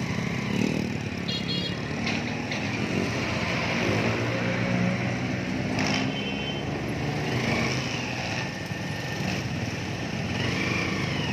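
Motorcycle engine running steadily while riding, with road and traffic noise around it.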